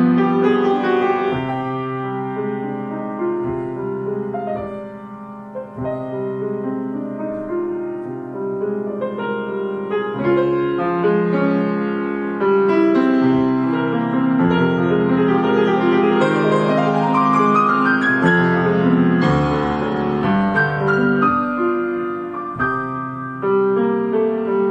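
Solo grand piano playing sustained chords and melody. It softens about five seconds in, then swells louder from about twelve seconds, with a rising run of notes around seventeen seconds.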